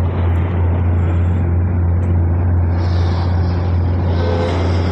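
Diesel truck engine idling, a steady low drone that does not change.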